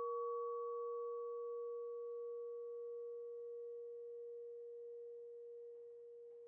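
Church bell's hum ringing out after a strike: one steady low tone fading slowly, with a fainter higher overtone that dies away before it.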